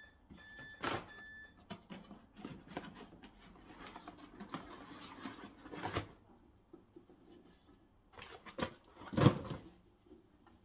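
Three short electronic beeps, then a series of mechanical clicks and clunks with two sharper clicks near the end, from a Technics RS-CH404 cassette deck's controls and transport being worked.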